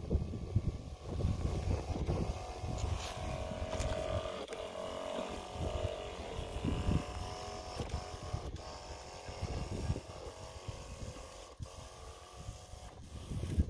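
12-volt battery backpack sprayer (Pandora Micul Fermier 12 L) running its electric pump with a steady whine while misting through the lance, with gusts of wind buffeting the microphone.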